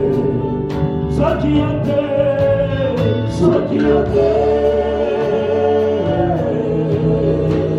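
Gospel praise song with sung voices over a steady bass and drum beat.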